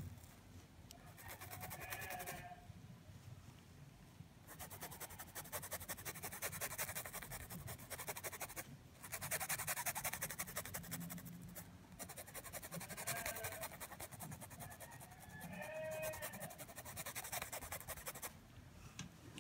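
Flat paintbrush scrubbing back and forth on cloth stretched taut in an embroidery hoop, blending white highlight paint into brown: a fast, rhythmic scratchy rustle in long runs with short pauses. A few brief faint tones sound in the background.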